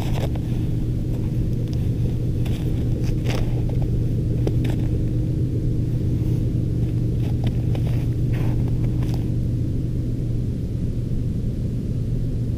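A steady low rumble with a few faint scattered clicks.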